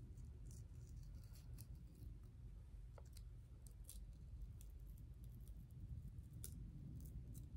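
Faint, scattered ticks and crackles of an adhesive nose pore strip being slowly peeled off the skin, over a low steady hum.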